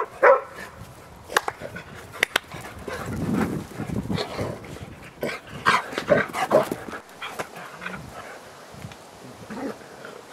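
A mixed-breed dog and a Portuguese Water Dog in rough play, with short barks coming at intervals, most of them about five to seven seconds in.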